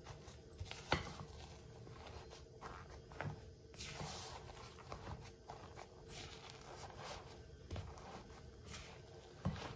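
Silicone spatula stirring and scraping a thick potato and cornstarch mix in a glass bowl: soft irregular scrapes and rustles, with a sharper knock about a second in and again near the end.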